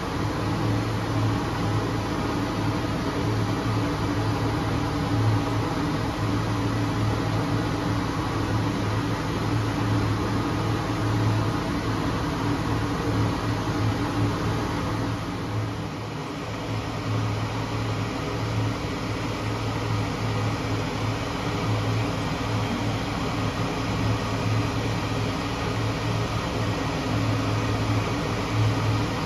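A steady machine hum, a low tone with a fainter higher one above it, dipping briefly about halfway through.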